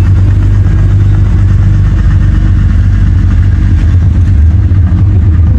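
McLaren Artura's twin-turbo V6 running at low revs, a steady low-pitched note, as the car rolls slowly away.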